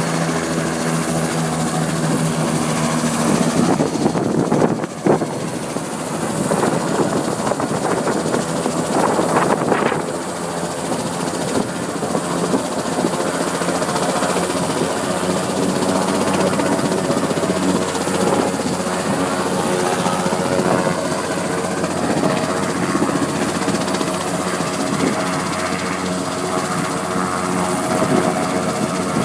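Coast Guard helicopter running steadily, its turbine engine and rotor giving a constant hum of stacked tones over a rushing noise. A brief sharp knock comes about five seconds in.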